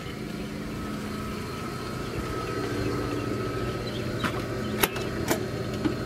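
Pool filter pump motor running with a steady hum, with a few sharp clicks about four to five seconds in.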